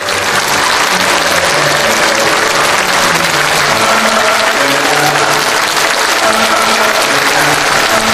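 Large audience applauding steadily, with music playing underneath.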